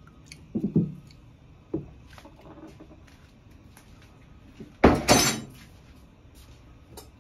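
Kitchen things being handled by the stove: a few soft knocks, then a loud clinking clatter about five seconds in.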